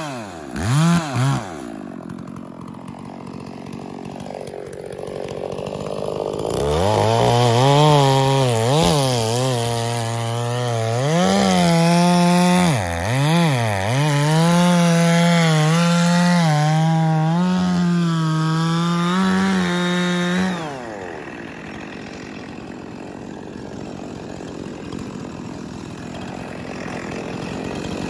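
Stihl two-stroke chainsaw cutting through a large log. After two quick revs it drops to a quieter running sound. From about seven seconds it runs at full throttle in the cut, its pitch sagging and recovering under load several times, then it drops back sharply about twenty seconds in.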